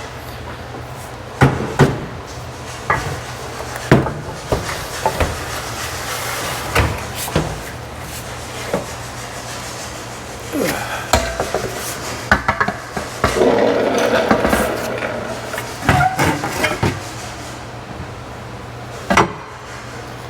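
Scattered knocks, clanks and scraping of hand tools and loose metal body parts being handled during Humvee disassembly, with a longer scraping stretch about two-thirds of the way through, over a steady low hum.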